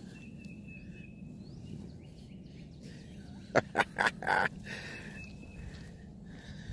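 Outdoor ambience with birds calling, and a quick run of four loud, short sounds about three and a half seconds in.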